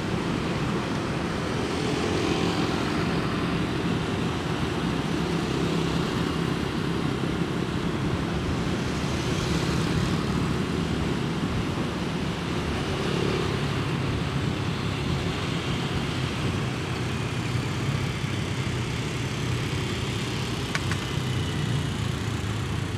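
Steady traffic noise heard while riding a motorbike: a low engine hum under a constant rushing road noise, with the motorbikes and cars around it.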